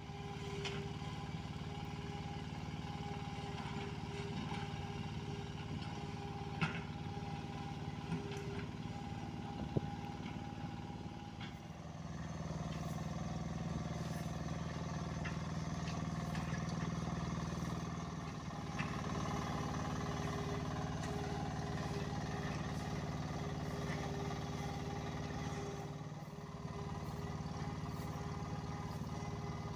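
Bomag walk-behind double-drum roller running steadily, its small engine humming as it is walked along the road edge. The sound grows louder partway through and dips briefly near the end, with two short sharp clicks in the first third.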